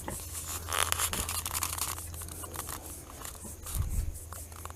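Wood-chip bedding of a deep-litter pig pen rustling and crunching as it is disturbed, with scattered short crackles and a low thump about four seconds in.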